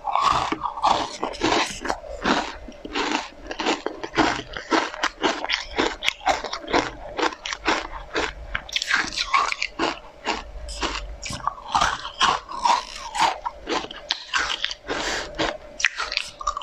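A person biting and crunching through a pink spoon-shaped sweet dipped in matcha and chewing it, in a close, dense run of sharp crunches several times a second.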